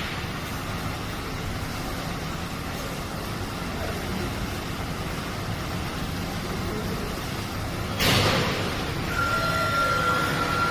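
Steady vehicle-like mechanical rumble. About eight seconds in comes a sudden loud hiss, and then steady tones hold to the end.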